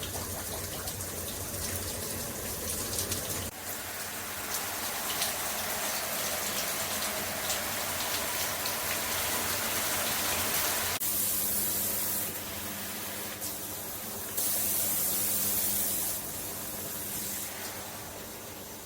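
Water spraying steadily from a handheld shower head. The spray changes character a few times: about three and a half seconds in, again near eleven seconds, and it is brighter and louder for a couple of seconds near fifteen seconds.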